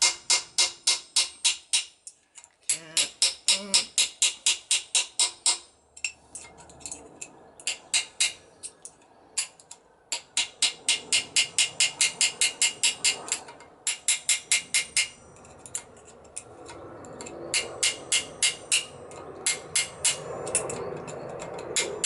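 Rapid hammer blows on metal, about five a second, in runs broken by short pauses, each blow leaving a short metallic ring. The hammering is being used to work a fastened part loose on a motorcycle engine being stripped down.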